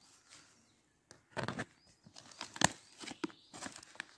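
Cardboard box being slit open with a small knife and its flaps worked apart: a series of short scrapes, rustles and tearing of cardboard and tape, the sharpest a little past the middle.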